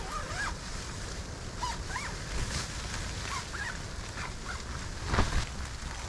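Steady storm-wind noise on the tent, with several short, high squeaks that slide up and down in pitch and a louder thump with rustling about five seconds in.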